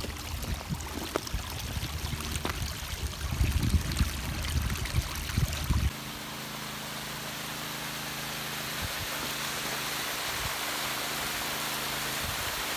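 Pumped pond water running along a grassy roadside ditch, with irregular low rumbling bumps. About halfway through it changes abruptly to a steady rushing hiss of water gushing out of the end of a 2-inch pump discharge hose onto the lawn, with a faint steady hum underneath.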